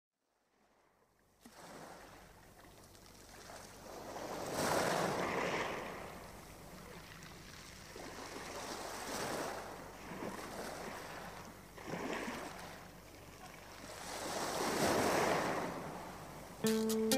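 A rushing, surf-like noise that swells and fades four times, like waves washing in. Plucked guitar music starts just before the end.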